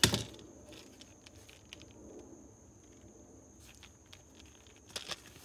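Hard plastic parts of a DeWALT DCW210 orbital sander and its dust bag being handled: one sharp knock at the start, then faint rubbing and small ticks, and a few light clicks near the end as the bag is fitted to the dust port.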